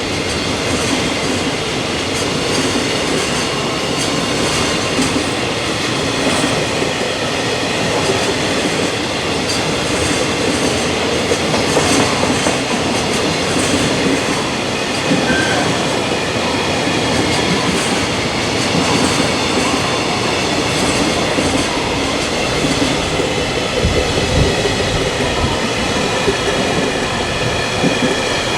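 Freight train wagons rolling steadily past, steel wheels clacking over the rail joints.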